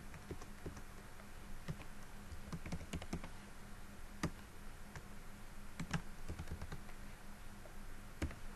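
Computer keyboard typing: irregular keystrokes, with a couple of louder key presses about four and six seconds in.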